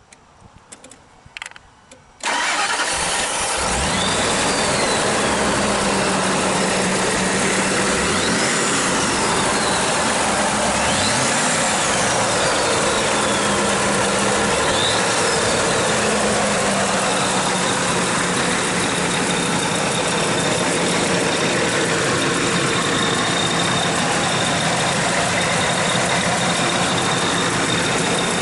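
The supercharged 5.4-litre V8 of a 1999 Ford F-150 SVT Lightning cranks and starts about two seconds in after a few faint clicks, then idles steadily, blipped up and back down in revs three or four times before settling into a steady idle.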